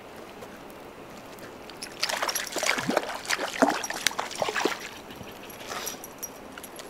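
Water splashing and sloshing in a run of quick, irregular splashes for a few seconds, then a short flurry more near the end, over a steady background hiss.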